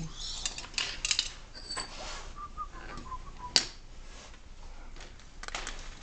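Small metal clicks and taps of hand tools working at a snow thrower's carburetor, with one sharp click a little past halfway and a faint, falling squeak just before it.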